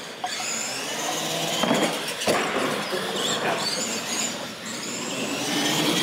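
Radio-controlled monster trucks racing, their electric motors whining and rising and falling in pitch, with a few knocks about two seconds in.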